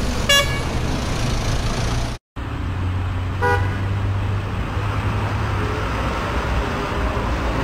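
Steady street traffic rumble with a short car horn toot near the start and a second, fainter toot about three seconds later. The sound cuts out for a moment just after two seconds.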